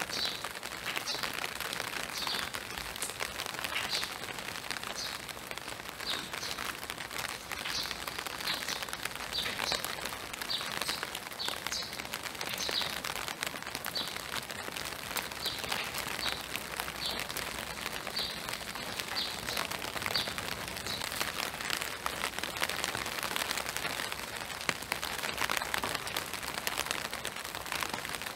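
Steady spring rain falling on woodland and a wet boardwalk, with a bird repeating a short high chirp about once a second, stopping about twenty seconds in.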